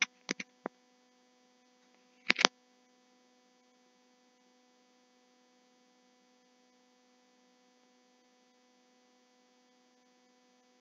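Steady electrical mains hum, with a few sharp clicks right at the start and a louder double click about two seconds in.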